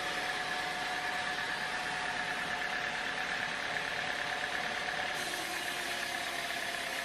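Sawmill machinery running steadily: a constant engine-like drone with a steady whine over it, with no change in load.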